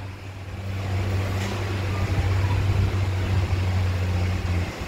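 Steady low hum with a fainter higher hum line above it, over a background hiss; the hum drops away near the end.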